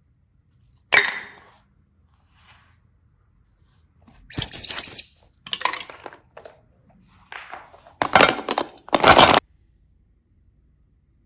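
Small objects being handled close up: a sharp click about a second in, then several short bursts of clattering and crackling.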